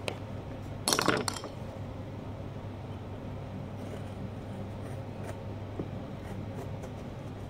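Metal carving tools clinking: a short clatter of several quick strikes about a second in, then a few faint clicks of a blade cutting into pumpkin rind, over a steady low hum.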